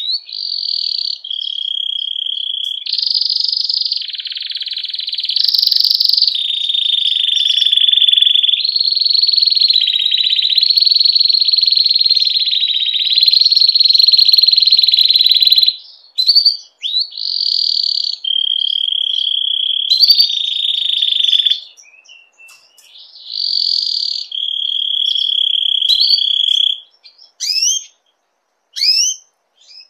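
Domestic canary singing: long rapid trills held for one to three seconds each, jumping between pitches, with short rising chirps between phrases. It is the courtship song of a canary in breeding condition.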